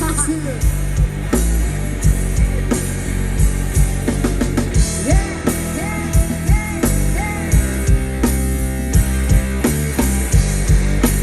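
Rock band playing live: a drum kit keeping a steady beat under electric guitar and bass.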